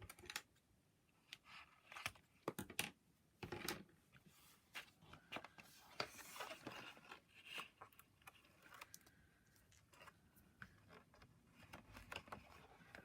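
Faint, scattered crinkles, taps and short tearing sounds of cardstock pieces and tape being handled and pressed together.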